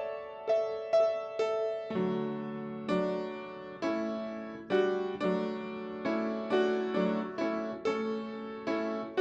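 Piano playing slow closing music: single struck melody notes at first, then fuller chords with lower notes from about two seconds in, each note fading after it is struck.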